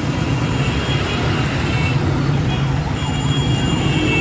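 Congested road traffic: a steady rumble of idling and creeping vehicle engines, with a faint siren rising and falling in the background.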